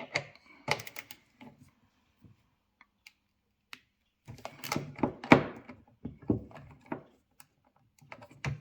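Irregular clicks and rattles of a hand tool and metal parts as the door latch actuator's triple-square screws are undone and the actuator is worked loose, in bunches with short quiet gaps.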